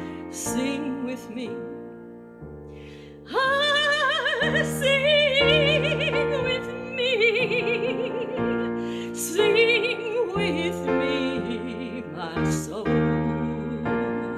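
A woman singing a solo hymn with strong vibrato, accompanied by piano chords. She sings softly at first, then from about three seconds in holds loud, sustained high notes.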